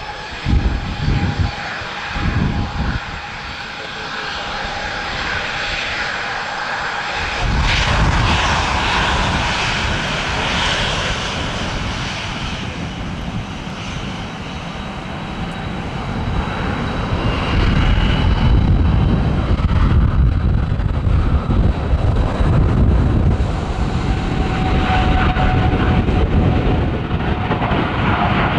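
Jet airliner engines running with a steady whine. A heavy rumble sets in about seven seconds in and grows louder through the second half. In the first few seconds, gusts of gale-force wind thud on the microphone.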